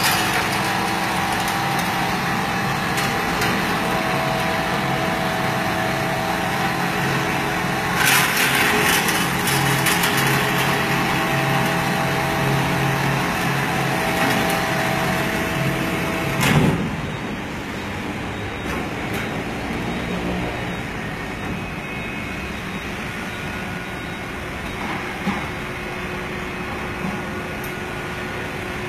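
Amada HFA-400 CNC band saw running with a steady machine hum, set to cut an aluminium tube with a 10 mm wall. About halfway through there is a sudden loud burst with a falling tone, after which it runs more quietly.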